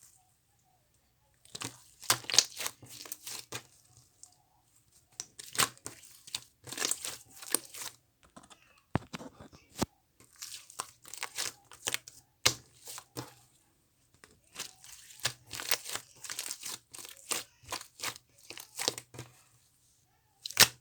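Strawberry-milk slime being squeezed, folded and stretched by hand, giving bursts of sticky crackling and popping with short pauses between handfuls.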